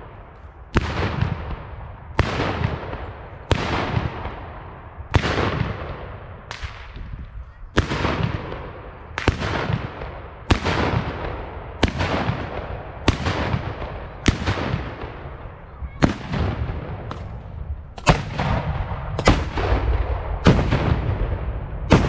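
Black-powder salute guns (Böller) firing one after another in a rolling salute: a steady run of sharp bangs, about one a second or a little faster, each trailing into a long echo. The loudest bangs come near the end, one fired close by.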